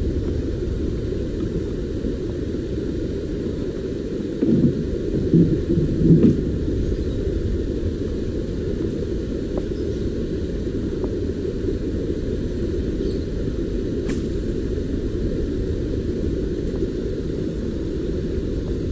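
A steady low rumble, with a few louder bumps about four to six seconds in.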